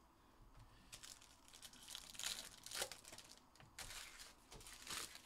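Plastic foil wrapper of a trading-card pack crinkling as it is torn open and pulled off, in a run of short crackling bursts starting about a second in.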